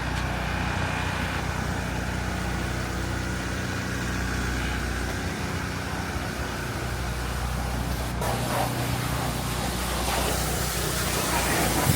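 Car engine idling steadily with a low, even hum; a short sharp click is heard about eight seconds in.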